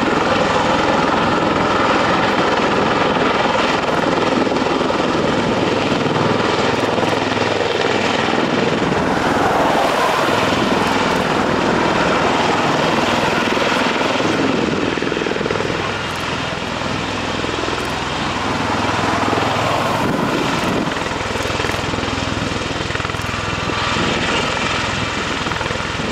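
Bell Boeing V-22 Osprey tiltrotor's two proprotors and twin turboshaft engines running loud and steady as it flies in helicopter mode, hovers and descends to land, with a slight drop in level about two-thirds of the way through.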